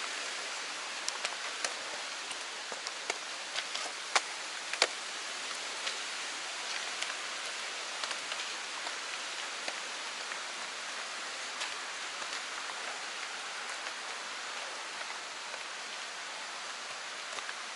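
Steady rush of a mountain stream's running water, with a few sharp clicks and taps over it, the loudest about four and five seconds in.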